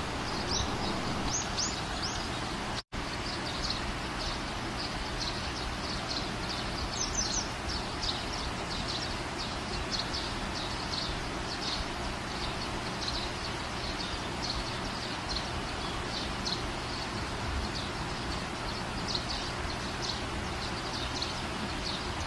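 Small birds chirping in short, high, irregular chirps over a steady background hiss, with a momentary break in the sound about three seconds in.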